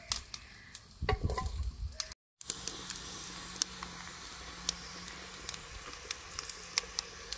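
Wood fire crackling in a clay-and-mud chulha: frequent sharp pops and snaps over a steady hiss. In the first two seconds dry sticks are knocked and shifted as they are fed into the fire.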